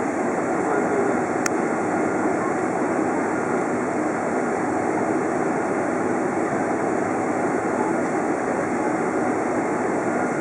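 Steady cabin noise inside a Boeing 747-400 taxiing after landing, an even rumble and hiss with no rise or fall. A single sharp click sounds about a second and a half in.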